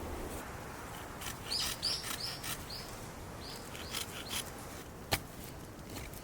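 A wild bird calling: a quick run of about four short high chirps a second and a half in, then two more a couple of seconds later, with light crackling and one sharp snap about five seconds in.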